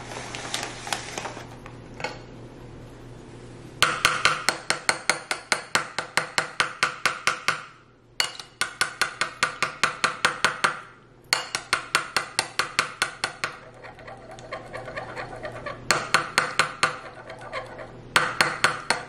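A metal fork beating eggs into milk in a ceramic bowl, clinking quickly against the bowl at about five strokes a second. The strokes come in runs, with short breaks and slower stirring toward the end.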